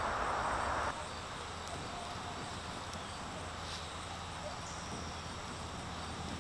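Quiet outdoor background of insects calling steadily in the grass, with a soft hiss during about the first second.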